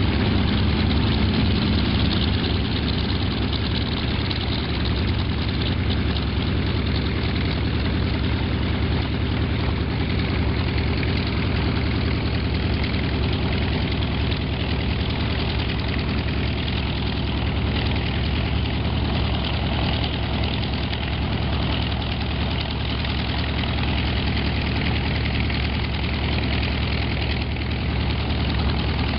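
Radial piston engines of vintage warbirds (T-6 Texan, T-28 Trojan, A-1D Skyraider) running at low power while taxiing, a steady low rumble that holds throughout.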